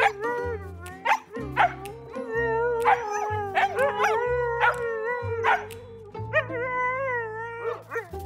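Siberian husky howling in long, drawn-out notes that bend up and down, over background music with a bass line.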